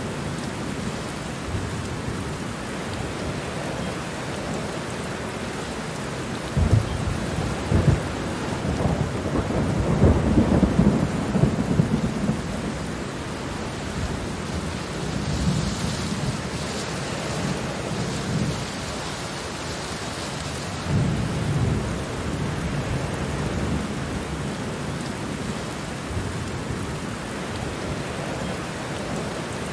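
Steady rain falling, with low rumbles of thunder rolling in several times; the longest swell comes about ten seconds in.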